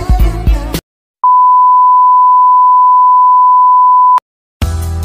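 Television colour-bars test tone: one loud, steady, pure beep about three seconds long, with a brief silence on either side of it. Background music cuts off abruptly before the tone and comes back near the end.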